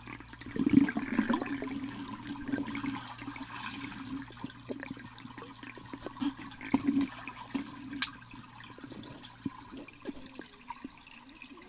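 A pool skimmer net swishing through pool water, with irregular sloshing and small splashes, busiest in the first couple of seconds. A steady low hum runs underneath and stops about nine seconds in.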